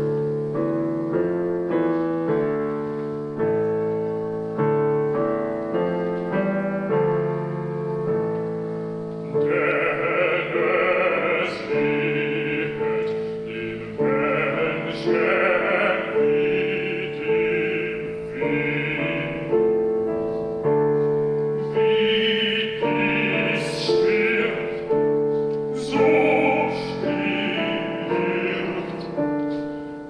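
Piano playing a slow succession of chords with one note repeated throughout. About ten seconds in, an operatic soprano enters, singing in short phrases with brief breaths between them, over the piano.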